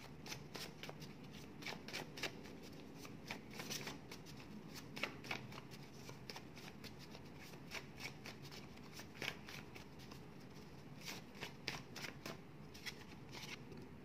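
A small deck of word cards being shuffled by hand: an irregular run of soft card flicks and clicks.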